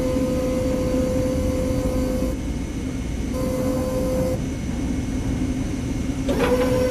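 A steady mechanical hum with a whine over it. The whine runs for about two seconds, breaks off, comes back for about a second in the middle, and returns near the end.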